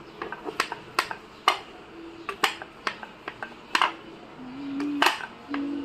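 Rolling pin working a ball of dough out flat for a momo wrapper: a string of sharp, irregular clicks and knocks.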